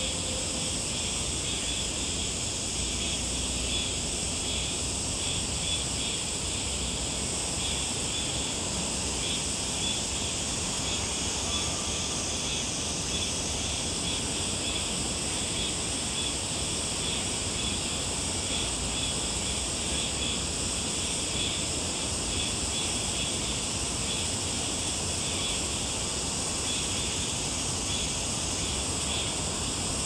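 A steady summer chorus of insects, several high-pitched trilling voices layered together, one of them pulsing rapidly, with a low steady rumble beneath.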